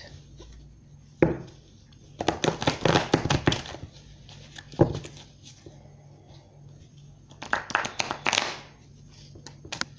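A deck of tarot cards shuffled by hand: two spells of rapid card-on-card flicking and slapping, the first a couple of seconds in and the second near the end, with a single sharp knock before each spell.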